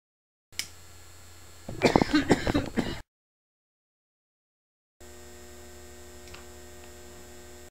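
Steady electrical mains hum on the recording, broken twice by dead silence where the title cards are cut in, with a short loud jumble of sound about two seconds in.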